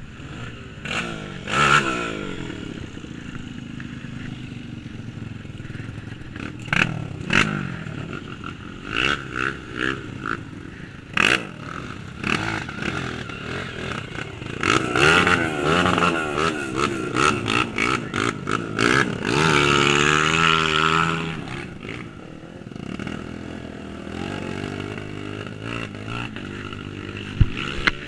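Single-cylinder trail motorcycle engine revved in repeated short blips and longer pulls, its pitch rising and falling, with a sustained high rev about twenty seconds in.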